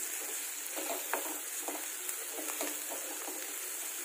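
Chopped onions and green chillies sizzling in hot oil in a pan, stirred with a wooden spatula that scrapes through them in short, irregular strokes. Ginger-garlic paste has just gone in and is being fried until its raw smell cooks off.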